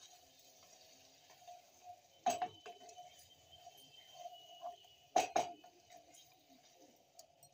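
A spatula stirring chicken in thick masala in a metal kadhai, knocking and scraping against the pan. There is a sharp knock about two seconds in and two louder knocks just after five seconds, with faint scraping in between.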